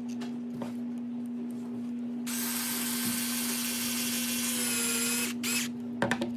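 A cordless power screwdriver runs for about three seconds, driving a screw into the plastic chassis, its whine sagging in pitch just before it stops. A steady low hum sits underneath, and there are a couple of clicks near the end.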